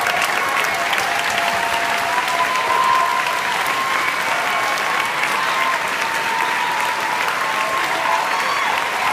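A large audience applauding steadily, with a few drawn-out cheers held over the clapping.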